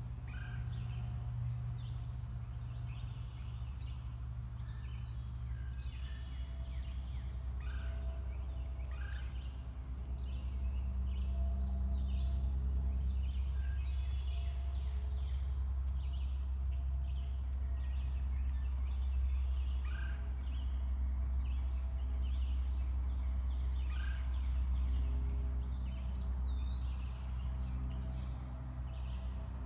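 Several wild birds calling and singing: many short chirps and whistled notes, some swooping up and down, over a steady low rumble.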